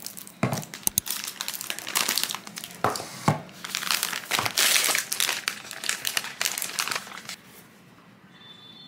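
Plastic food packaging crinkling and rustling as convenience-store snacks are handled and unwrapped, with a few thumps; it dies down about seven seconds in.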